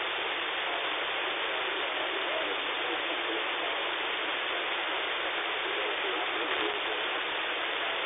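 Radio receiver hiss and static from a KiwiSDR web receiver tuned to 27.555 MHz in upper sideband, a steady even hiss confined to the narrow voice passband. Faint wavering traces of a weak signal sit under the noise.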